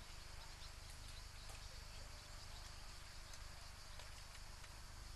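Faint outdoor ambience: insects droning steadily in a high band over a low steady hum, with a few faint scattered ticks.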